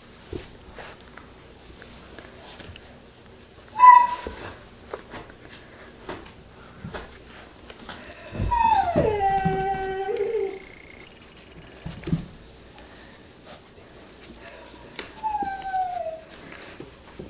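Six-week-old Nova Scotia Duck Tolling Retriever puppies whining, with several short, very high squeals. About halfway through comes a louder, longer whine that drops in pitch and holds, and a shorter falling whine comes near the end.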